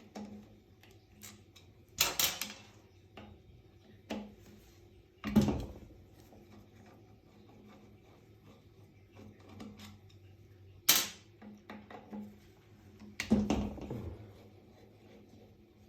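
Heavy metal belt-grinder parts being handled and set down: four sharp clunks, with lighter clicks and knocks between them.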